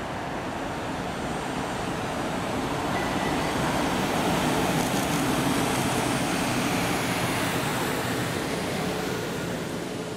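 A PKP EP09 electric locomotive running light past at speed: a steady rumble of wheels on rail and the locomotive's running noise, building as it approaches, loudest about halfway through, then easing as it goes by.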